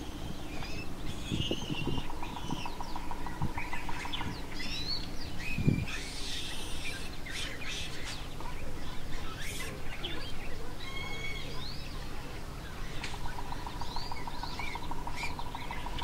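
Wild birds chirping and calling in many short, quick-sweeping notes, with a fast even trill near the start and again near the end. A few soft low thumps in the first half.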